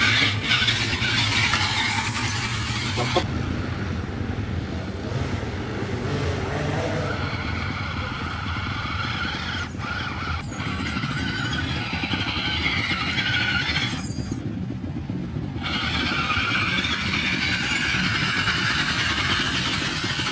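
Scale RC rock crawler with a tubular chassis driving through mud and over rocks: its motor and gears whining under load while the tyres churn and scrabble. The sound changes abruptly a few times, with the high whine dropping out briefly in the middle.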